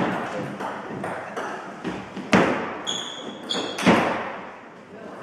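Table tennis rally in a large hall: the celluloid ball clicking off the bats and the table in quick succession, each click echoing. Two hits past the middle are much harder, and two short shoe squeaks come between them.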